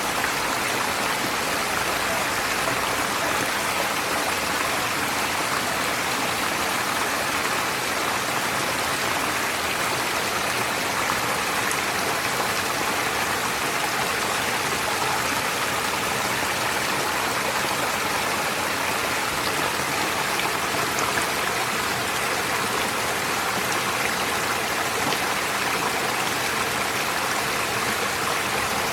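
Forest stream flowing steadily, a constant rush of running water without any separate splashes or breaks.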